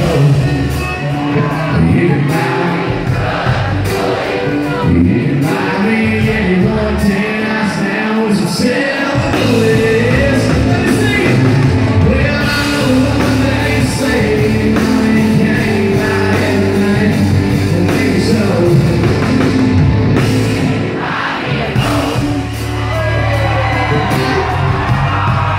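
Live country band playing loud through a big stage sound system, with a male lead singer, drum kit and guitars. About five seconds in the bass and kick drum drop out for a few seconds, then the full band comes back in.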